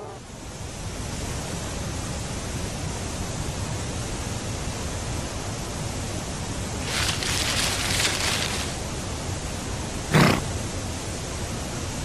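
Steady hiss of background noise, with a stretch of rustling about seven seconds in and one brief, sharp noise about ten seconds in.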